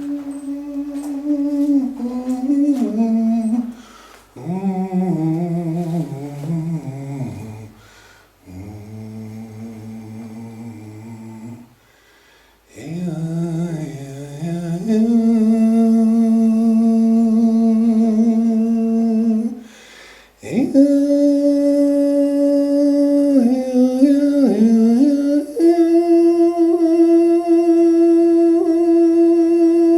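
A human voice humming long held notes inside a sound chamber, in several phrases with short breaks between them; some notes slide down in pitch, and the last note is held steadily for several seconds.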